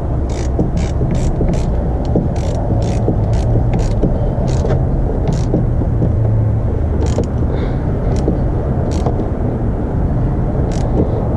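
Socket ratchet clicking in short runs as a car battery terminal nut is tightened, several sharp clicks a second at first, thinning out after about halfway, over a steady low rumble.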